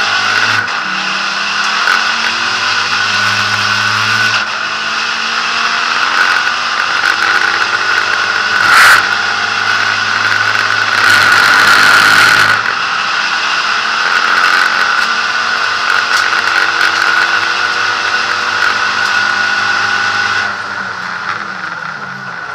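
Inside the cabin of a SEAT Ibiza SC Trophy race car at racing speed: the engine runs hard, with its pitch dropping and picking up again several times as the driver lifts and accelerates. There is a sharp knock about nine seconds in and a louder rush of noise a couple of seconds later.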